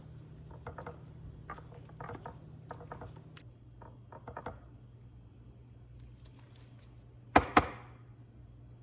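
A spoon scraping and tapping against a pan while stirring a thick halwa mixture, over a steady low hum, then two sharp loud knocks in quick succession about seven seconds in.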